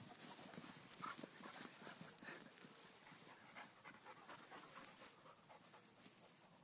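A dog panting faintly close by, with soft irregular rustles of footsteps in grass.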